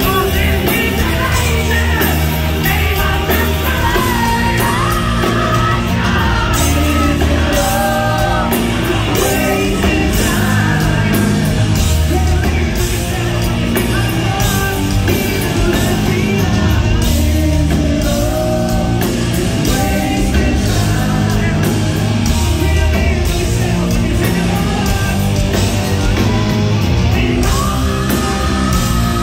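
Live hard rock band playing: a male singer's vocals over electric guitars, bass and drums, loud and continuous, heard from within the audience in a theatre hall.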